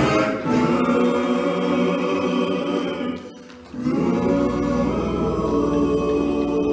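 Gospel choir singing long held notes, breaking off briefly about three seconds in and then holding a chord.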